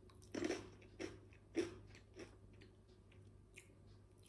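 Crisp potato chips (San Carlo 1936) bitten and chewed with the mouth close to the microphone: four crunches over about two seconds, the later ones fainter.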